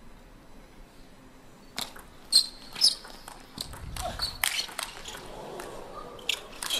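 Table tennis rally: the ball clicks sharply off rackets and table in quick, irregular succession from about two seconds in. Shoes squeak on the court floor.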